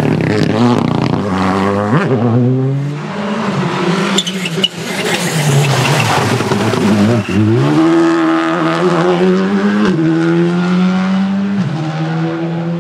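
Rally car engine revving hard, its pitch climbing and then dropping sharply at gear changes about four times.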